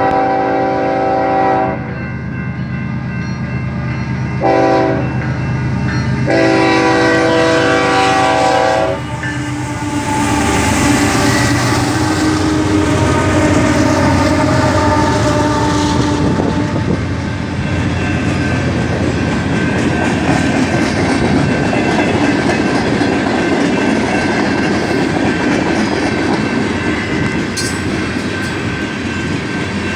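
Freight locomotive horn sounding the crossing signal: a long blast ending about two seconds in, a short blast around four and a half seconds, then a final long blast that stops about nine seconds in. After that, the lead BNSF diesel locomotives pass close by with their engine drone, followed by the steady rumble and wheel clatter of freight and tank cars rolling past.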